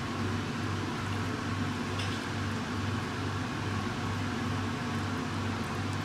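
Steady machine hum over an even hiss, with a low throb pulsing about three times a second, like a running fan or kitchen appliance.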